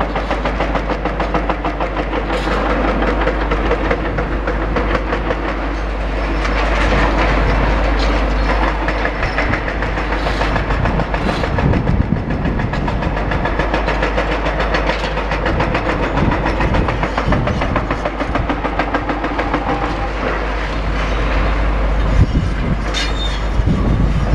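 Excavator-mounted hydraulic breaker hammering rapidly and continuously into a building under demolition, over the low running of the excavator's engine.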